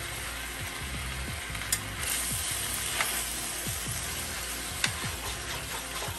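Sausage, potatoes, peppers and onions sizzling steadily in a hot enameled cast-iron skillet as a spoon stirs them and scrapes the browned bits up from the bottom, with a few sharp clicks of the spoon against the pan.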